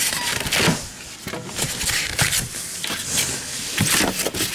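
Styrofoam packing being pulled and torn apart by hand: a run of irregular scrapes and crunches.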